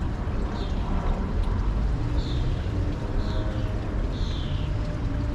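Wind rumbling on the microphone, with a small bird giving a short, high, falling chirp about once a second.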